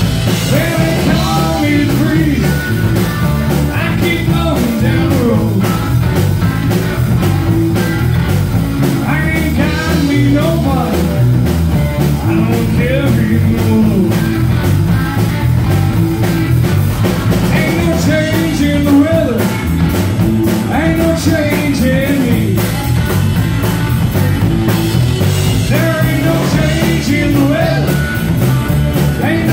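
Live rock-and-blues band playing: electric guitar and bass guitar over drums, with a man singing lead.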